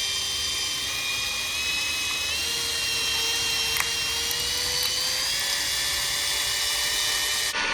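Electric drill running steadily while drilling into the plug stuck inside a hole saw. Its whine rises slightly in pitch through the middle, with a single click about four seconds in.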